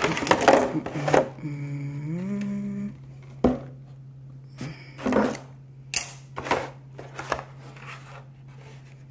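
Stiff plastic packaging being handled: a run of clicks and rustles, then a few separate sharp knocks as the black plastic insert tray is lifted out and set down. A steady low hum runs underneath.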